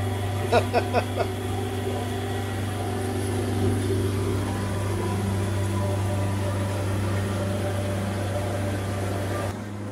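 Houseboat's engine running steadily while the boat cruises, a low even hum with water noise beneath it. A brief voice is heard about half a second in.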